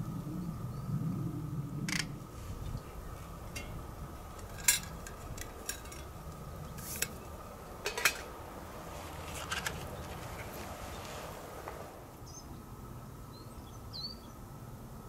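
Metal camping cookware clinking and tapping as a pot and its parts are handled and set up, a string of sharp separate clinks over the first ten seconds. A few faint bird chirps near the end.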